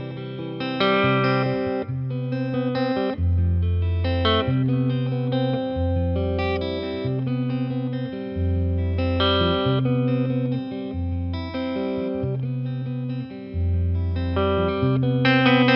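Eastman T185MX semi-hollow electric guitar played through a Boss Nextone amplifier in an improvised blues-jazz piece. Long low bass notes change every second or so under chords and short melodic phrases.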